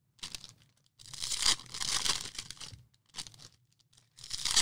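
A baseball card pack wrapper being torn open and crinkled by hand, in four rustling bursts, the longest lasting about two seconds.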